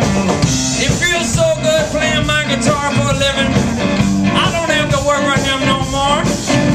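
Rock band playing, with drums, bass and a sung lead vocal line over them.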